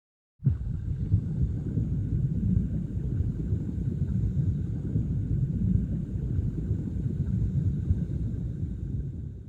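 Low, churning rumble of rushing water, starting abruptly about half a second in and fading away at the end.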